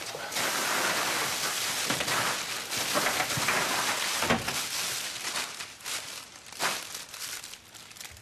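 Large plastic bags rustling and crinkling as hands rummage through them, a dense crackling rustle that is loudest in the first five seconds and then eases off into scattered crinkles.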